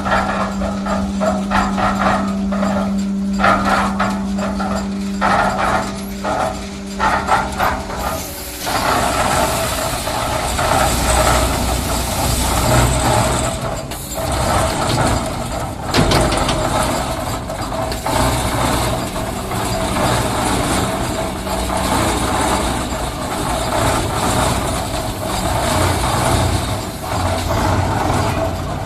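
Concrete mixer machine's engine running: a steady hum with light clicking for the first eight or so seconds, then a fuller, noisier engine sound.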